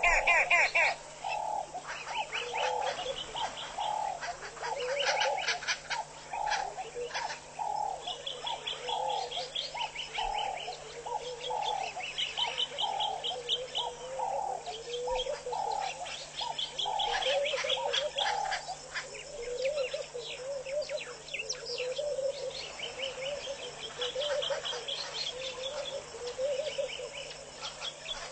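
Birds calling at a waterhole: a low call repeated about once a second, changing to a slightly lower rising note about two-thirds of the way in, with bursts of higher chirping over it.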